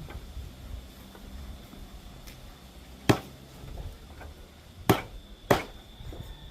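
A knife chopping chicken into pieces on a cutting board: three sharp chops, one about three seconds in and two close together near the end.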